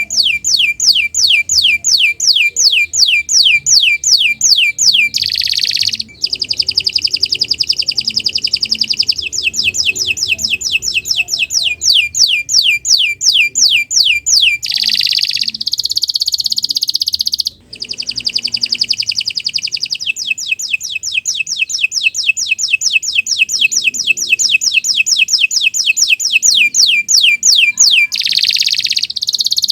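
Domestic canary singing a long, loud, nearly unbroken song: runs of rapid repeated notes that each sweep downward, about five a second, alternating with denser buzzy rolling phrases.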